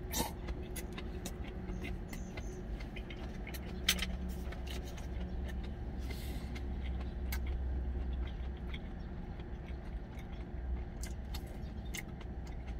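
Steady low hum of an idling truck engine inside the cab, with scattered light clicks of a utensil against a stainless steel bowl and quiet sipping and chewing.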